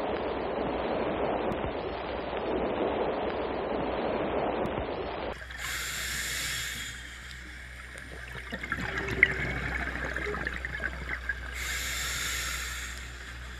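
Moving water, trickling and gurgling, with two hissing washes about six seconds apart. It follows a sudden cut, about five seconds in, from a duller, muffled rushing noise. A single sharp click comes about nine seconds in.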